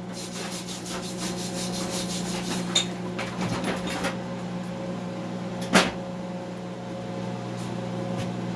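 Gasless flux-core MIG welding arc crackling and spitting on heavy steel plate, over a steady low electrical hum. The crackle dies away about four seconds in, and there is a single sharp click a little before the six-second mark.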